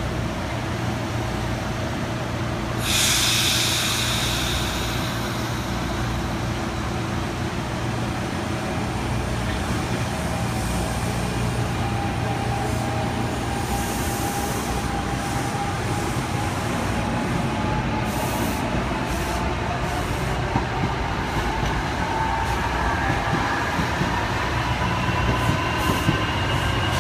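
NJ Transit Arrow III electric multiple unit moving off slowly, its ABB GTO-inverter AC traction motors whining with a slowly rising pitch over a steady low hum as the train accelerates. A burst of air hiss comes about three seconds in, and sharp clicks from the wheels come in the second half.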